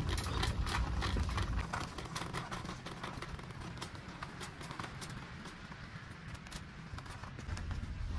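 Plastic shopping cart being pushed across a tile store floor: a low rolling rumble from the wheels with many small irregular clicks and rattles. The rumble is strongest in the first second or so and picks up again near the end.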